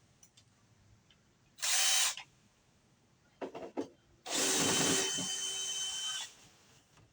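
Power drill running in two bursts, first about half a second, then about two seconds with a steady high whine, with a few short clicks between them.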